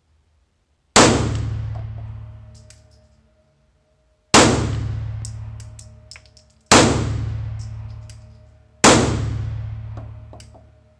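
Four 9mm pistol shots from a Mossberg MC1 striker-fired pistol, each a sharp report with a long echo off the walls of an indoor range. The first comes about a second in, and the rest follow two to three seconds apart, with light clinks between the shots.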